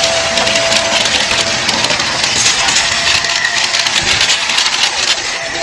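Shark Navigator upright vacuum running, its extension wand sucking up debris along the carpet edge, with rapid crackling of bits rattling up the wand through the middle.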